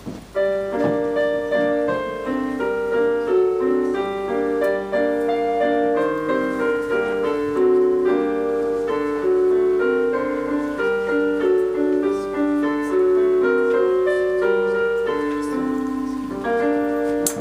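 Piano music starts suddenly about half a second in: a melody of evenly paced notes over a chordal accompaniment.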